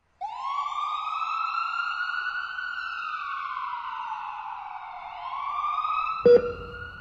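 A wailing siren that rises in pitch, falls slowly over several seconds, then rises again. Near the end comes a single sharp thump.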